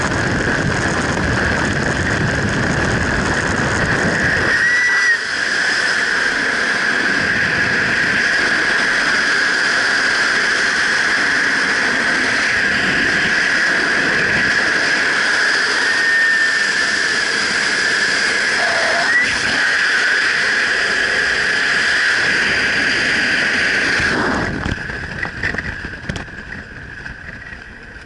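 Freefall wind rushing loudly over a skydiver's head-mounted camera, with a steady whistling tone running through it. About 24 seconds in, the rush drops away to a quieter, uneven wind as the parachute opens and the jumper flies under canopy.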